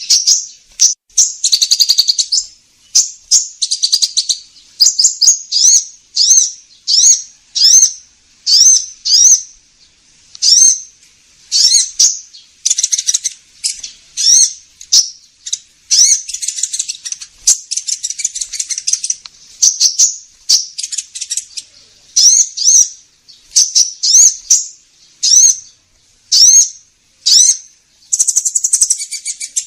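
Bird-lure recording of a kolibri ninja sunbird calling: a rapid run of high, sharp chirps and short rising notes, about two a second, broken by a few longer buzzy chattering trills.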